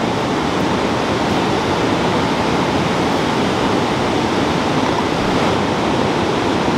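River water rushing, a steady even noise with no break.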